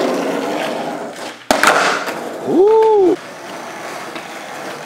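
Skateboard wheels rolling on a smooth indoor floor, with one sharp clack of the board hitting the floor about a second and a half in. A short rising-and-falling whoop follows, and from about three seconds in the rolling goes on more quietly.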